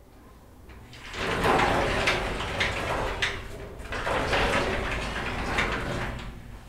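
A shop door being opened: a long scraping, rattling noise with regular knocks about twice a second.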